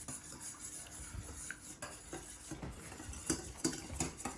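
A utensil stirring pancake batter in a bowl, scraping with irregular clinks and taps against the bowl.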